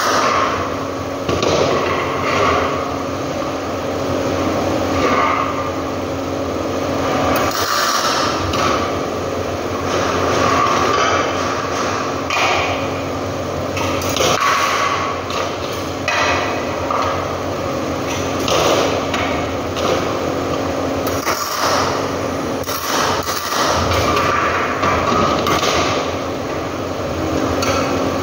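Irregular metallic knocks and clinks as thin sheet-metal letter parts are tack-welded and handled on a metal workbench, over a steady hum.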